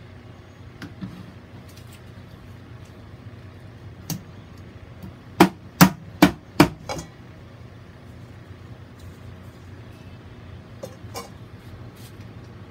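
Four sharp knocks in quick succession, about 0.4 s apart, preceded a second earlier by a fainter one, with a few light clicks near the end; a steady low hum runs underneath.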